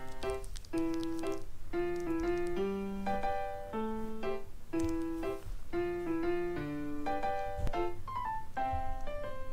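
Background piano music: a light melody of short, separate notes.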